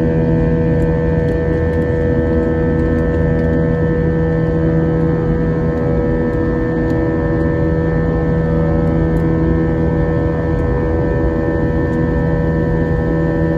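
Jet airliner cabin noise in the climb after takeoff: a loud, steady engine drone with several held tones over an even rush of air noise.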